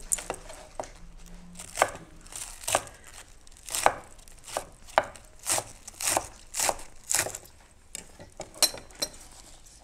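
Kitchen knife chopping green onions on a wooden cutting board: a string of sharp knife strikes through the stalks onto the board, roughly two a second, with short uneven gaps.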